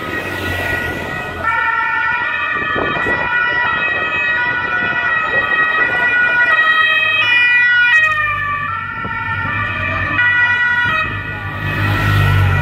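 Police motorcycle sirens wailing in steady held tones that shift pitch every few seconds. Near the end a motorcycle engine rumbles as one passes close.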